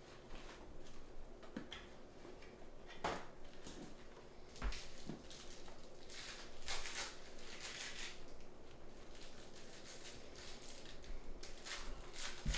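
Trading cards and packs being handled on a table: soft rustling swishes and light clicks and knocks, with a few louder swishes about three seconds in, around the middle and near the end.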